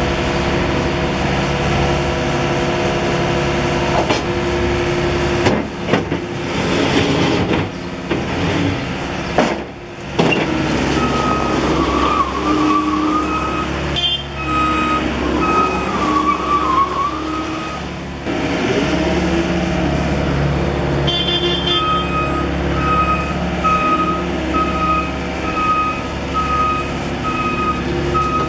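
Volvo MC110B skid steer loader's diesel engine running, with its load changing in the first third as the machine works. Its backup alarm sounds in the second half, beeping evenly a little faster than once a second near the end.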